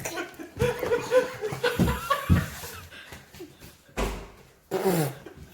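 Laughter and wordless vocal reactions, mixed with a few knocks, as a mouthful of very spicy wasabi paste takes effect.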